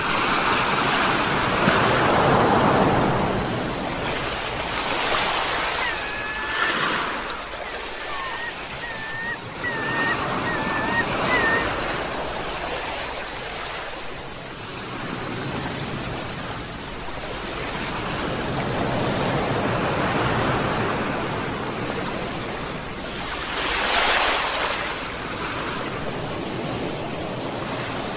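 Sea waves breaking and washing on a shore, surging and receding in slow swells. From about six to twelve seconds in, several short seagull calls sound over the surf.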